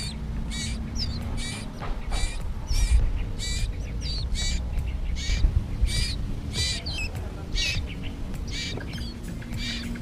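Nestlings begging with short, high, squeaky chirps repeated about twice a second while the parent bird feeds them.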